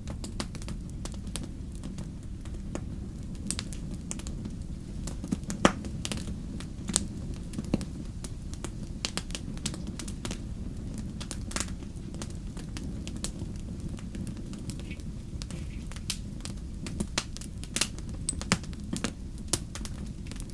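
Campfire crackling: a steady low rumble of burning with irregular sharp pops and snaps, a few louder ones about six seconds in and near the end.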